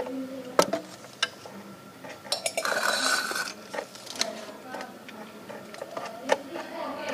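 A few sharp clicks and knocks, with a scraping rustle of about a second near the middle, from a small metal tin being handled on a stone countertop.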